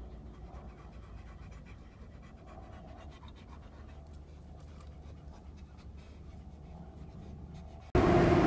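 Faint, steady low rumble of a distant airliner high overhead, with light rustling. Near the end it cuts suddenly to a much louder passage with a voice.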